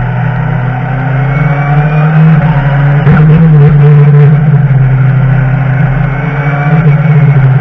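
BMW touring race car's engine heard from inside the cabin, running hard at fairly steady revs, with a brief break in the note about three seconds in.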